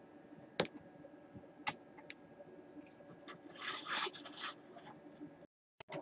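Handling noise: two sharp clicks about a second apart, then a stretch of scratchy rubbing. The sound drops out completely for a moment near the end.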